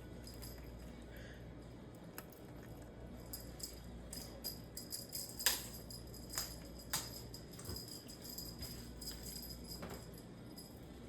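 Cat toy bell jingling and rattling in irregular short bursts as the toy is swung and batted, the loudest jingle a little before halfway.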